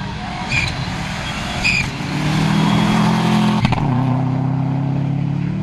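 Rally car engine at high revs under hard acceleration, with two short sharp sounds in the first two seconds. From about two seconds in, a strong, steady engine note is held at high revs.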